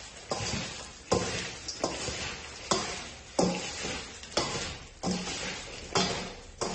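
Shredded purple cabbage being stirred and tossed in a bowl with salt, sugar and white vinegar: a moist rustling swish, repeated in strokes about once or twice a second.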